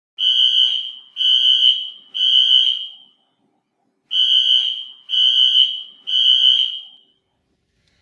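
Building fire alarm sounding a loud, high-pitched tone in a temporal-three pattern: three pulses about a second apart, a pause, then three more, each pulse trailing off with a short echo.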